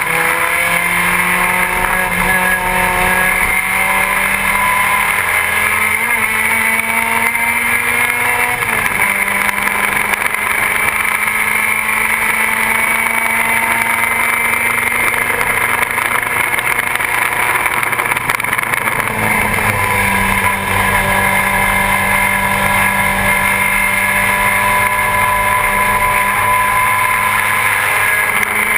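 BMW 2002 race car's four-cylinder engine heard from inside the cockpit, running hard at racing speed. Its pitch climbs slowly and steps to a new note about eight seconds in and again near twenty seconds in, over wind and road noise.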